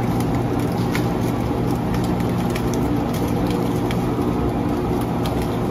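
Electric sugarcane-juice press running with a steady, even motor hum, with light scattered clicks over it.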